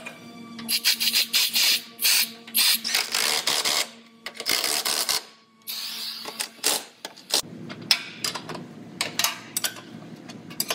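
Steel pinch-weld clamps being fitted and bolted to a frame-straightening bench: a busy run of metal clanks, clicks and short rasping bursts as the clamp bolts are tightened, over a steady low hum.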